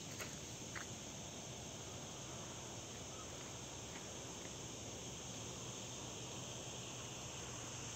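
Steady high-pitched insect chorus, an even continuous drone with no break.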